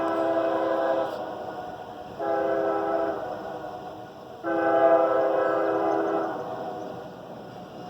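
CSX freight locomotive air horn blowing. A held blast cuts off about a second in, then come a short blast and a longer, louder one that fades out.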